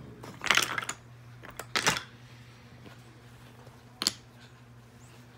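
Wooden toy blocks clacking against each other as a child rummages through a pile of them: a short clatter about half a second in, two sharp knocks just before two seconds, and one more knock about four seconds in as a block is set on the wooden stacking train.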